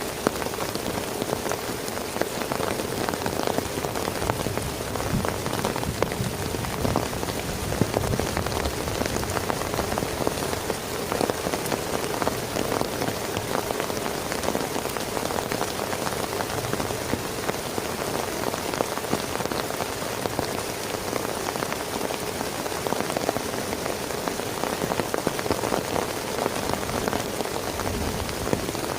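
Heavy rain falling steadily, a dense, even spatter of drop hits on a surface.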